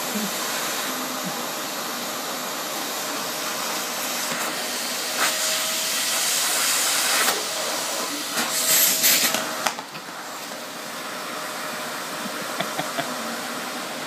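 Vacuum cleaner running, a steady airy suction hiss. Twice, about five and eight seconds in, the hiss grows louder for a second or two with a faint whistling note, then it settles a little lower.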